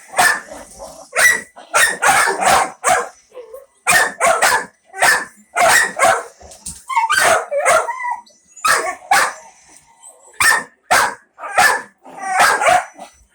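Dog barking over and over, about twenty sharp barks in quick runs of two to four, with a longer wavering yelp about halfway through.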